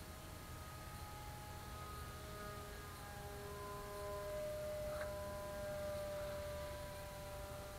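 Faint steady whine of the flying wing's brushless electric motor and propeller in flight, its pitch stepping up and down as the throttle changes, over a low hum. A single brief click about five seconds in.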